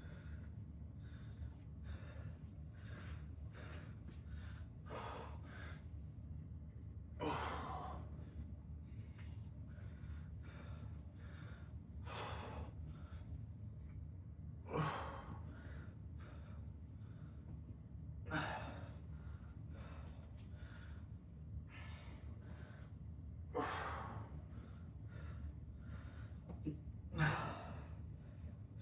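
A man breathing hard through a set of exercise reps: quick breaths with a louder, sharp exhale about every three to four seconds, over a steady low hum.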